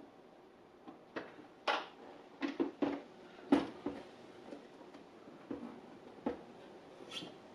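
Plastic clicks and knocks from a Brother SE700 sewing machine being handled, a plastic part being worked loose and taken off, with several sharp knocks close together in the first half and a few more spread out later.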